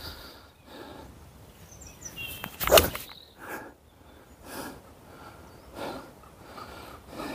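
A golf ball struck off the tee with an 8 iron: one sharp click of the clubhead meeting the ball, just under three seconds in. The ball was caught high on the clubface.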